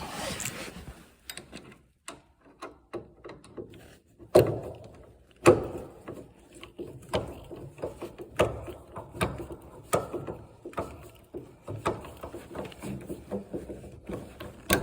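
Clicking and ticking of a hand tool working the refrigerator door's metal hinge screws as they are tightened down, with two sharp knocks about four and five and a half seconds in.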